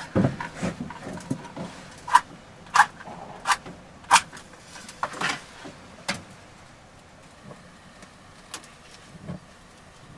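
Matches being struck against the side of a matchbox: about half a dozen short, sharp scrapes between about two and six seconds in, made while lighting a gas cooker ring.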